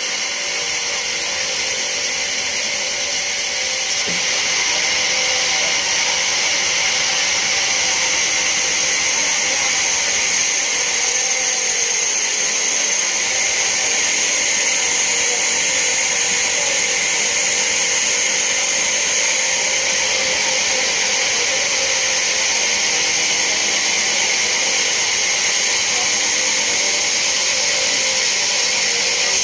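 Band sawmill running steadily as its blade cuts lengthwise through a large teak log: a loud, constant, high-pitched sawing noise.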